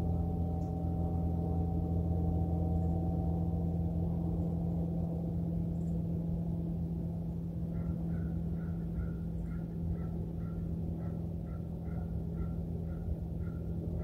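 A bird giving a steady series of short, evenly spaced calls, about two a second, starting about eight seconds in. Under it runs a steady low hum with several tones, the higher of which fade away in the first half.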